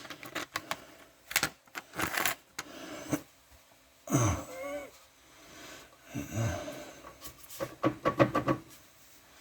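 Scattered clicks and knocks of handling, with a few short breathy grunts, one about four seconds in that falls then rises in pitch.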